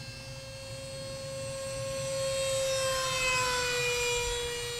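50 mm electric ducted fan of a small RC F-16 jet whining steadily in flight at about 45% throttle. The whine grows louder as the jet passes and drops slightly in pitch about three seconds in.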